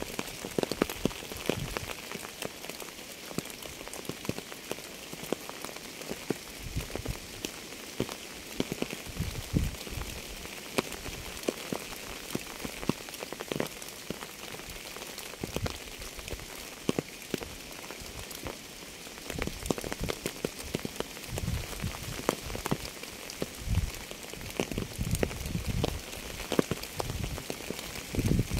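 Steady rain falling on a surface: a constant hiss dotted with many sharp individual drop hits, and every so often heavier drops landing with a dull thud, more of them near the end.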